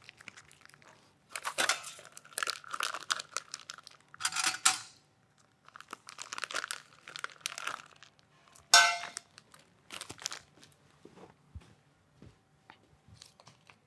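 Plastic bag of raw beef crinkling and rustling in irregular bursts as it is handled and squeezed empty into a metal container. A louder sharp sound comes about nine seconds in.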